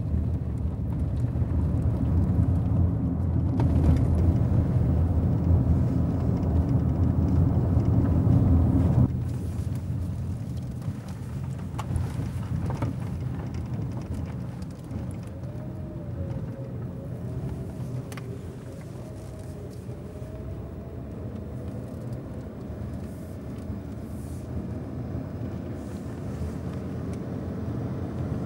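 Car cabin road noise: a loud low rumble of tyres on a rough, bad road surface, which cuts off abruptly about nine seconds in to a quieter, steady hum of the car running on a smoother road.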